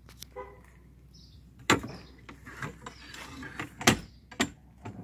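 Stainless steel swim-platform boarding ladder being swung down from its folded position on the boat's teak platform, clanking as it drops into place. There are a few sharp metal knocks, the loudest about four seconds in.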